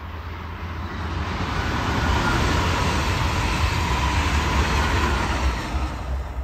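A train passing by: a rumbling, rushing noise that builds over the first couple of seconds, holds loud, then dies away near the end.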